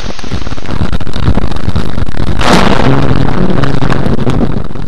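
Thunder from a close lightning strike picked up by a dashcam in rain: a loud, steady rush of noise with a sharp crack about two and a half seconds in. A low, steady drone hangs on under it for about two seconds after the crack.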